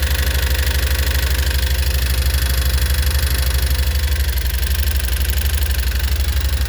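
Yamaha Wolverine X4 side-by-side engine idling steadily with an even, rapid ticking pulse. It is a new tick that appeared after the engine was rebuilt following a loss of oil.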